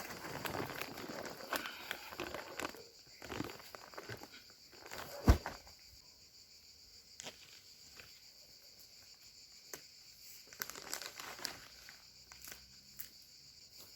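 Plastic packaging of a tarp bundle rustling and crinkling as it is unwrapped, with a single sharp knock about five seconds in. Insects chirr steadily behind it.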